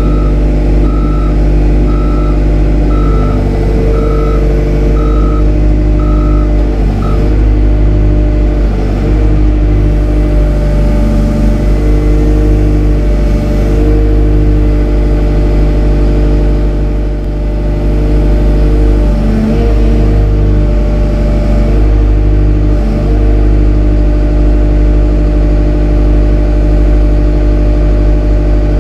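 A Liebherr crawler excavator's diesel engine and hydraulics work as it lowers its boom on the lowbed trailer, over a steady low diesel drone. A warning beeper sounds about once a second and stops about seven seconds in.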